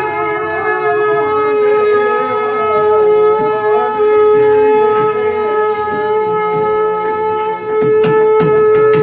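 A wind instrument holds a steady drone note while a wavering melody line moves above it, as folk music. Sharp drum strokes come in about eight seconds in.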